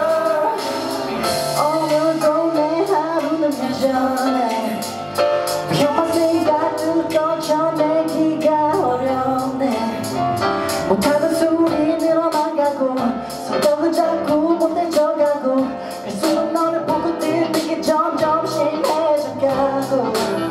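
A male voice singing a slow pop song live into a microphone over instrumental accompaniment with a steady beat.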